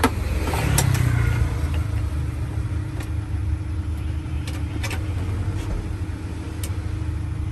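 A vehicle engine idling with a steady low rumble and hum, broken by a few light clicks and knocks from equipment being handled.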